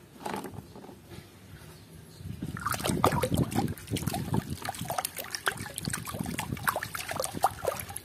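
Muddy water sloshing and splashing in a plastic basin as a hand scrubs a small plastic toy animal underwater, starting a couple of seconds in with a quieter lead-in.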